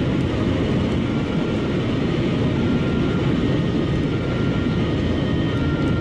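Steady road and wind noise inside a car cabin at motorway speed: an even low hum of tyres and engine with no change in level.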